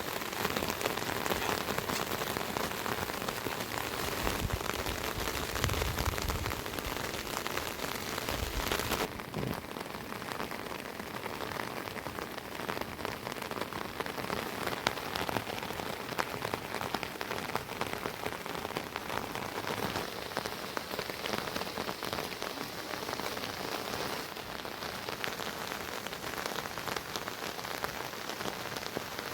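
Steady rain falling, a dense patter of drops hitting surfaces. About nine seconds in, the hiss eases slightly.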